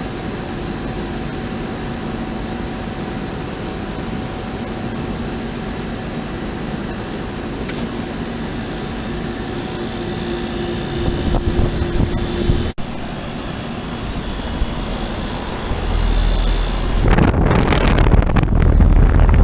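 Goodman GSX14 air conditioner condensing unit starting up: a steady hum with a few held tones, then in the last few seconds a deep rumble that builds into a loud rush of air as the unit gets going, the air buffeting the microphone.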